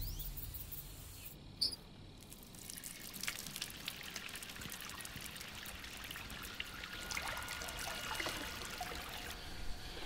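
A deep boom dying away at the start, a single click, then a faint crackling noise with a few faint high tones near the end.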